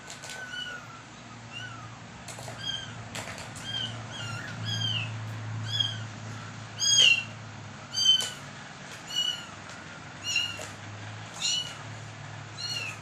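A cat mewing over and over, short high-pitched mews about once a second, the loudest two about halfway through. Light clicks come in between, from paws batting the plastic ball-track toy.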